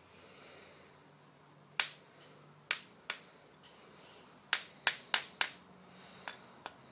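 Ring test on a roughly 50-year-old grinding wheel hung on an Allen key: it is tapped with a spanner about nine times, irregularly, with a quick run of four in the middle. Each tap is a short click that dies away at once, a dull thud instead of the proper ring, the sign of a wheel that is dubious to use.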